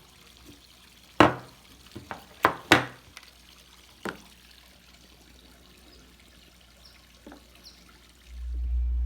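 Plastic refrigerator water-filter cartridges being handled, giving a handful of sharp clicks and knocks. A steady low hum sets in near the end.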